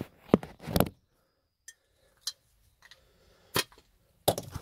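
Glass beer bottle's metal cap being knocked and prised against a hard edge to open it: sharp separate clicks and knocks, a few in the first second, single ones in the middle and a quick cluster near the end.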